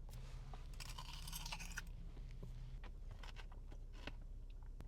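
Close-up crunching and chewing of a hard, crunchy novelty dessert shaped like a potato, with scattered crisp cracks, most dense in the first two seconds.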